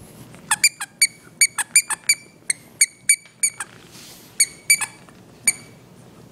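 French bulldog puppy chewing a squeaky plush toy, setting off a quick, irregular run of short, high squeaks, with a brief pause partway through.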